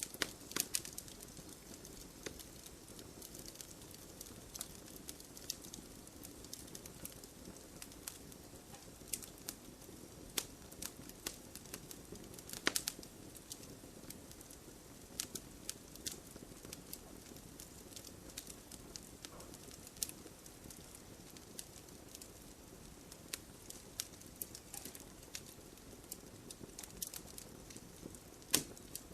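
Wood fire crackling: irregular sharp pops and snaps over a low steady hiss, with a couple of louder cracks.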